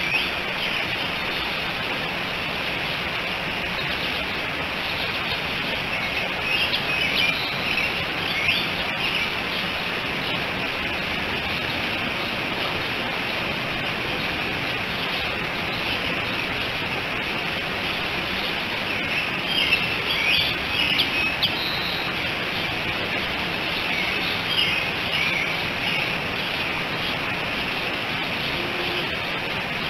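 Birds chirping in several short bouts over a steady outdoor hiss.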